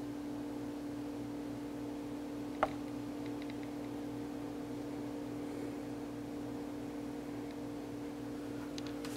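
Steady electrical hum over faint hiss, with one sharp click about two and a half seconds in.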